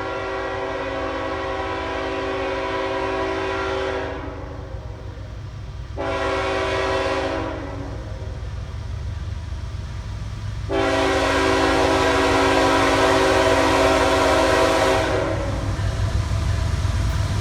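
Diesel freight locomotive's multi-chime air horn blowing the grade-crossing signal: a long blast that ends about four seconds in, a short one around six seconds, then a long one from about eleven to fifteen seconds, over the low rumble of the approaching CSX locomotives.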